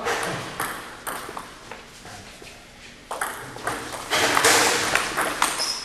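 Table tennis ball knocking sharply on the table and paddles, a few separate clicks in the first three seconds. From about three seconds in, a louder rushing noise sets in, with a short high squeak near the end.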